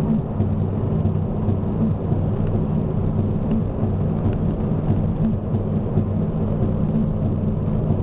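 Car driving on a paved highway, heard from inside the cabin: a steady low rumble of engine and tyre noise with a constant hum.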